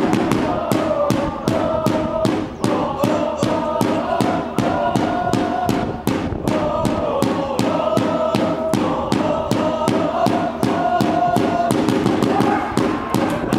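A group of football supporters chanting together in repeated sung phrases over a fast, even beat of about four strokes a second.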